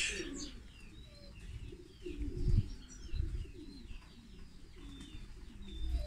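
Aviary birds calling: small finches giving many short, high chirps that slide downward, with doves cooing low underneath.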